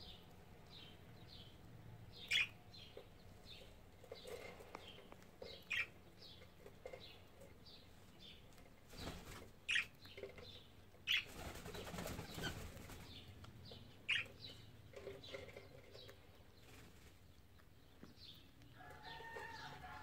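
Cockatiels pecking and husking wheat grains on a plate: a steady run of small, sharp clicks and taps about twice a second, with a few louder cracks. A rustling stretch midway and a short pitched call near the end.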